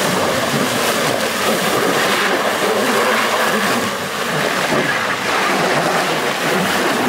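Mercedes-Benz X250d pickup's diesel engine working hard under load as it climbs through deep mud, its mud tyres spinning and churning, a steady heavy rush of engine and mud noise.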